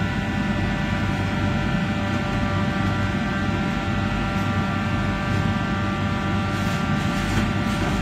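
Steady drone of commercial kitchen ventilation, the exhaust hood fan running with a constant hum, and a few faint clicks near the end.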